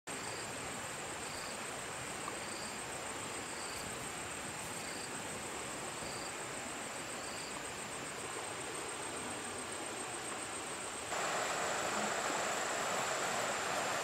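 Steady high-pitched insect trill with a short chirp repeating about once a second over outdoor background noise. About eleven seconds in, it jumps to a louder steady rush of flowing river water, with the insect trill still above it.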